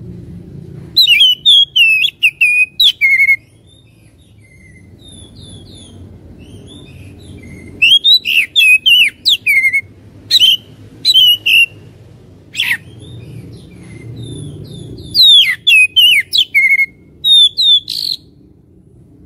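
Oriental magpie-robin (kacer) singing loud, rapid runs of sweeping whistled notes in three bursts of about three seconds each. This is a lure song used to provoke caged magpie-robins into singing back. A faint low rumble runs underneath.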